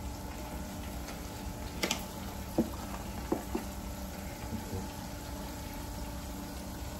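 Fish-fry-breaded pork chops frying in hot oil in an electric deep fryer, a steady bubbling sizzle. A few short clicks and knocks come between about two and three and a half seconds in.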